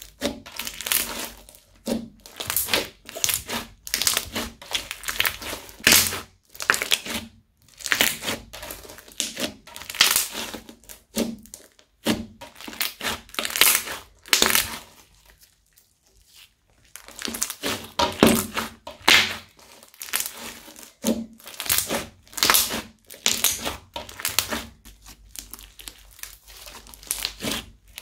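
Pink crunchy slime full of small beads being kneaded, folded and pressed by hand: repeated crunching, crackling bursts, one or two a second, with a pause of about two seconds midway.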